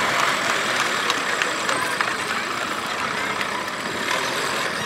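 Small Massey Ferguson tractor's engine running steadily as it drives over rough dirt, with crowd chatter mixed in.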